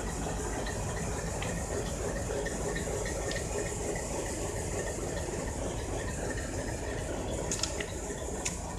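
WDG3A diesel-electric locomotive's 16-cylinder ALCO 251 engine idling, a steady low rumble under a constant hiss, with a couple of sharp clicks near the end.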